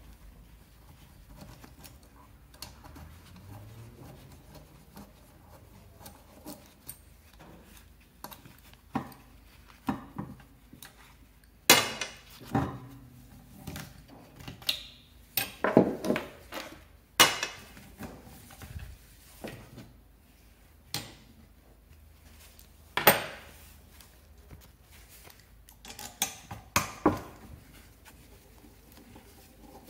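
Metal hand tools clinking and knocking against a scooter engine's crankcase as it is taken apart: scattered sharp clanks, thickest about halfway through, with a few more near the end.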